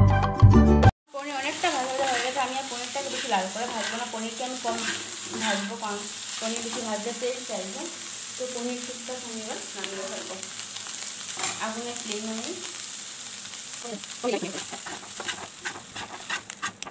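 Paneer cubes sizzling in mustard oil in a kadai, with a metal spatula scraping the pan as they are stirred and turned.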